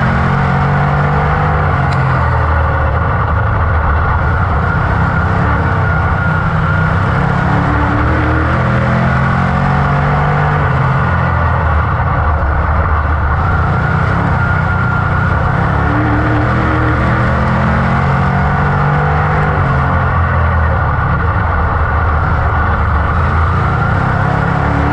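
A dirt modified's GM 602 crate V8 heard from inside the cockpit at racing speed, its pitch climbing and then falling again about every eight seconds as the car goes on and off the throttle around the oval.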